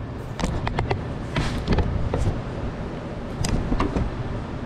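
A scatter of light clicks and knocks of hand tools and parts being handled in an engine bay, several in quick succession in the first two seconds and a couple more near the end, over a steady low hum.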